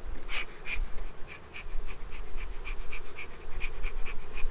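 Bee smoker's bellows being pumped in a steady run of short hissing puffs, about three a second, over the buzz of an open honeybee colony.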